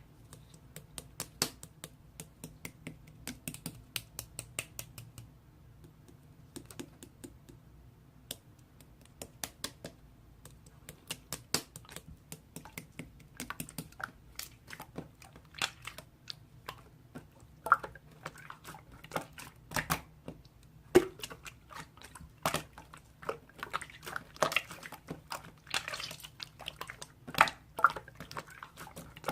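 Many quick, irregular taps and clicks in runs, as of fingers typing or tapping on keys. They are light at first and come louder and thicker in the second half.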